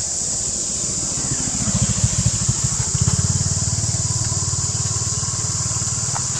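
A small engine running nearby, its low rumble building from about a second and a half in and strongest from about three seconds, over a steady high insect drone.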